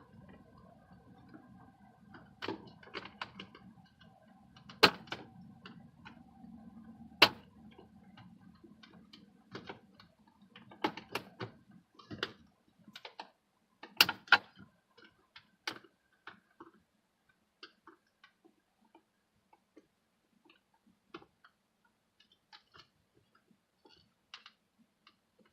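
Irregular sharp clicks and knocks of a screwdriver and plastic dashboard trim being worked to get at the instrument cluster, a few loud snaps among them, growing sparser in the second half.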